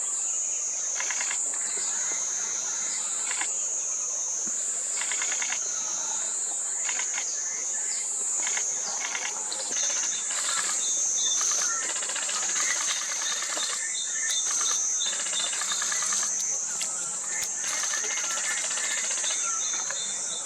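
Loud, steady high-pitched insect drone that wavers slightly in pitch, with short bursts of rapid bird calls and chirps over it, more of them in the second half.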